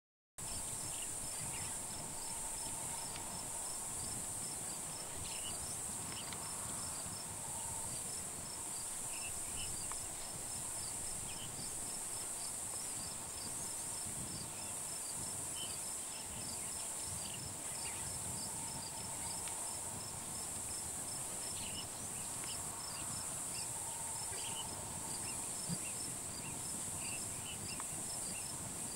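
Steady high-pitched chorus of insects, with a fast regular ticking running through it and a few scattered short chirps, starting abruptly about half a second in.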